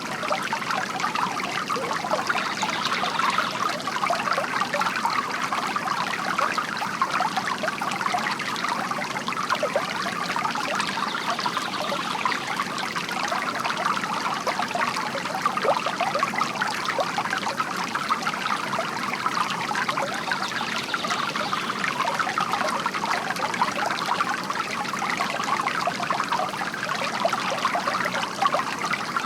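Water trickling steadily from a bamboo garden fountain.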